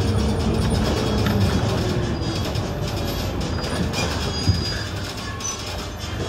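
City bus heard from inside the passenger area, its engine and drivetrain running with a low rumble and a faint whine that falls in pitch during the first couple of seconds as the bus slows to a stop behind a car. Light rattles and clicks of the interior fittings.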